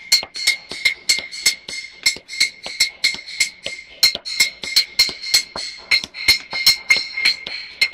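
Instrumental music: a fast, dry clicking percussion pattern, several clicks a second, over a steady high tone.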